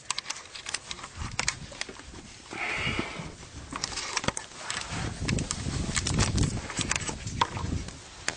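Handling noise from a running camera carried through a rock crevice: its microphone knocks, clicks and rubs, with a stretch of low rumbling rubbing between about five and seven seconds. A short, fuzzy, breathy sound about three seconds in.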